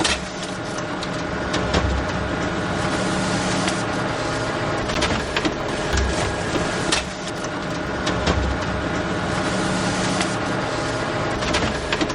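Photocopier running steadily, a mechanical hum with rattling rollers, overlaid by sharp clicks and a few low thumps at uneven intervals as paper feeds through.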